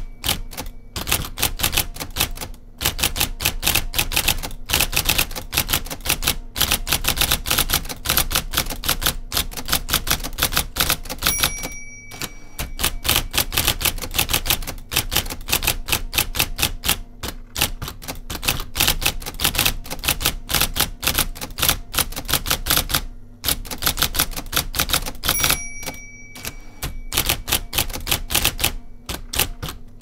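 IBM Selectric electric typewriter being typed on quickly: rapid, loud clattering strikes of its golf-ball type element come in bursts with short pauses, over the steady hum of its running motor. A short ringing tone sounds twice, once midway and once near the end.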